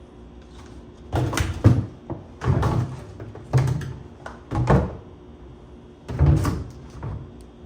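Fabric placemat being handled and laid on a tabletop: five short bursts of rustling and thumping, about a second apart.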